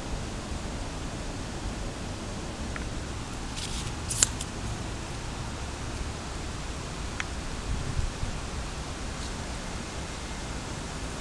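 Steady background hiss, with a few small clicks, the sharpest about four seconds in, and a soft low thump near the end.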